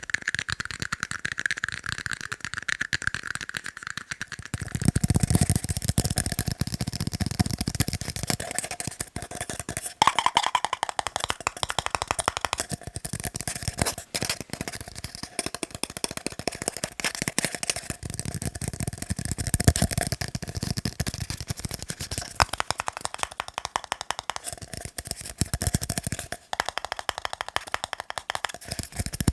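Fast, continuous tapping on tiny cups. The tone shifts every few seconds as the tapping moves from one cup to another.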